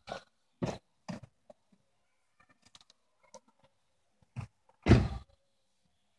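A few brief buffeting thumps on a handheld phone's microphone, the loudest a little before five seconds in, with faint scattered ticks in the quiet between.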